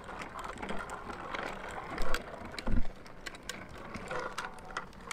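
Bicycle rolling over asphalt: a steady rush of tyre noise with light rattling and clicking, and two dull bumps about two and three seconds in.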